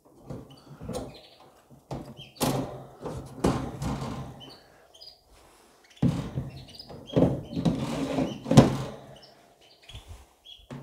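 Removable wire grids and a white pull-out tray being slid back into the aluminium rails of a canary flight cage: scraping and rattling with several sharp knocks, the loudest about eight and a half seconds in.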